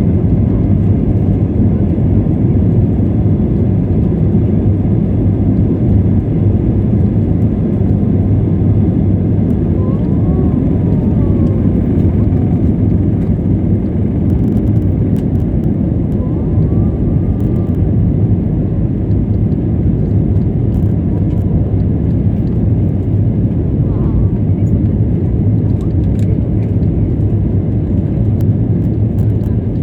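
Steady, loud, low rumble of an airliner cabin: jet engine and airflow noise heard from inside the passenger cabin.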